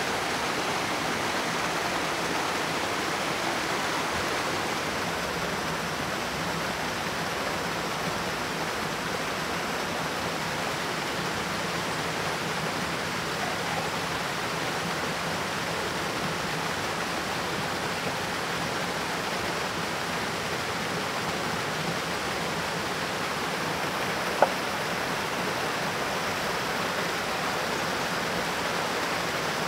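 Steady rushing of a small stream spilling over rocks, with one sharp tap late on.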